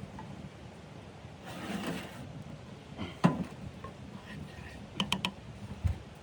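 Handling noises: a brief rustle, then a single sharp knock about three seconds in, three quick clicks about five seconds in and a low thud just after, over a steady low background noise.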